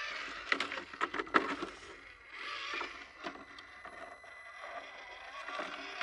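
FMS FCX24 K5 Blazer RC crawler's small electric motor and gearbox whining as the throttle rises and falls while it crawls down a rock ledge. Its tyres and chassis knock and scrape on the stone, with a cluster of sharp knocks in the first second and a half.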